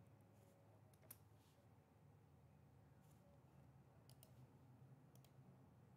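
Faint clicks from a computer mouse and keyboard over near-silent room tone. There are a few single clicks, the loudest about a second in, and a quick pair around four seconds.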